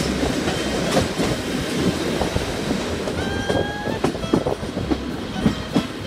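Diesel passenger train running, heard from on board: a steady rumble of wheels on rail with scattered clicks over the track, and a faint brief high squeal from the wheels about three seconds in.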